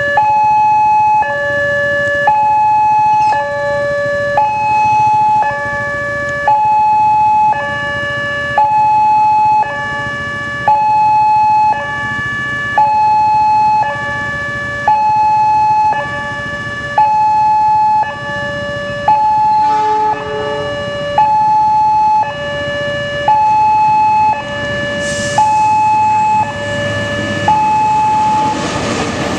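Level-crossing warning alarm sounding a steady two-note chime, a higher and a lower note alternating about once a second. Near the end an approaching train's rumble grows beneath it.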